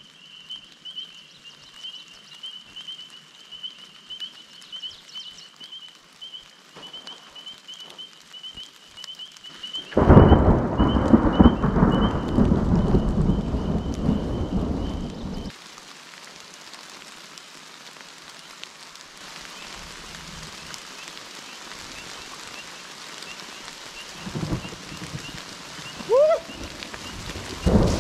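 A high, pulsing trill runs steadily over a quiet forest for about ten seconds. Then a loud, deep rumble of thunder lasts about five seconds and stops abruptly. After that, steady rain hisses down, with a couple of dull thumps near the end.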